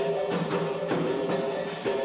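Capoeira music: a berimbau sounding a repeated twanging rhythm, with drum strokes keeping time.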